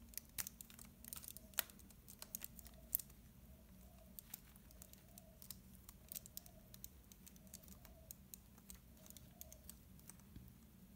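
Faint, irregular clicks of a Rubik's Snake's plastic wedges being twisted by hand and snapping into position, with a few sharper clicks in the first three seconds.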